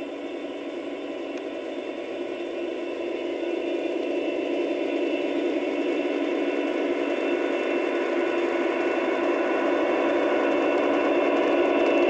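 Diesel engine sound from the QSI sound decoders of two Aristocraft GP40 model locomotives, played through their small onboard speakers. It runs steadily and grows louder as the locomotives approach.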